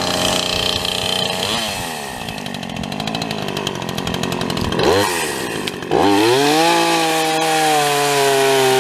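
Gasoline chainsaw engine idling, blipped up and down twice, then held at a steady high speed for the last few seconds.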